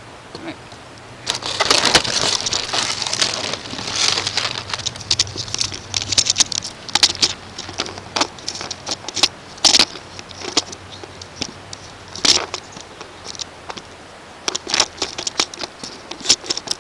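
Packaging being handled and pulled apart as an airsoft rifle is taken out of its box: irregular crinkling and rustling with scattered sharp clicks and snaps, in bursts.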